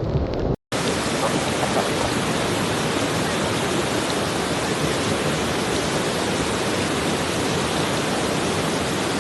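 A brief dropout less than a second in, then a steady, even rush of water noise, as of floodwater or heavy rain in full flow.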